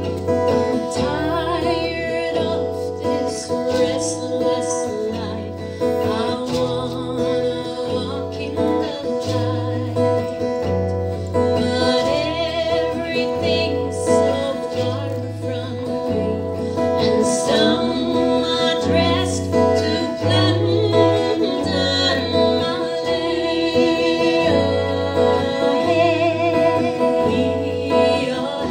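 A live song: women singing into microphones over a strummed acoustic guitar, with a regular low bass note about once a second.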